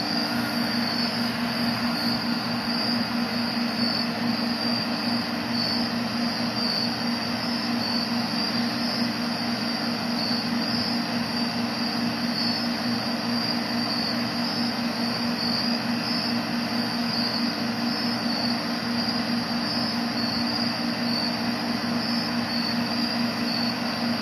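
Evening insect chorus: a high, pulsing chirr that goes on without a break, over a steady low drone.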